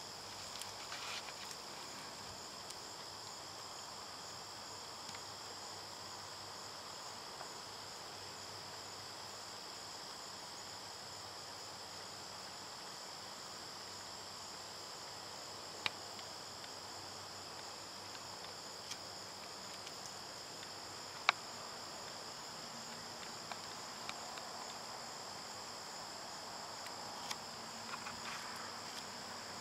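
Steady high-pitched chorus of field insects, a continuous even trill throughout. Two sharp clicks stand out, about halfway and about two-thirds of the way through, with brief rustling near the start and near the end.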